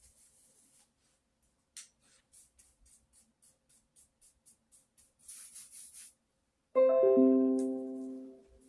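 Faint, short scratching strokes of a paintbrush on paper, then, near the end, a sudden loud piano-like chord that rings and fades over about a second and a half.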